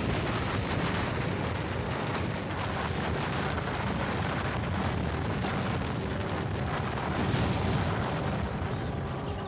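Dramatized sound effects of twin concrete skyscrapers collapsing: a continuous deep rumble with scattered crashes of falling debris, easing slightly near the end.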